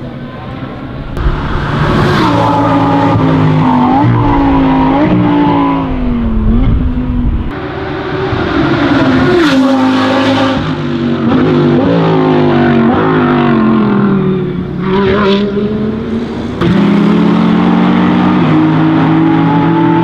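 Audi R8 LMS race car's 5.2-litre V10 at high revs on track, pitch climbing and dropping sharply with gear changes as the car passes. The sound changes abruptly twice, once about a third of the way in and once near the end.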